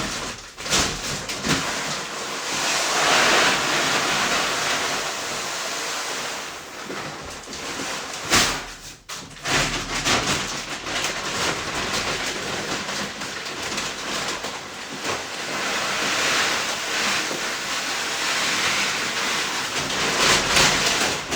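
Dry chicken feed (grains, pellets and cracked corn) pouring into a 5-gallon bucket feeder, a rushing hiss that swells and fades in long pours, with a sharp knock about a third of the way through.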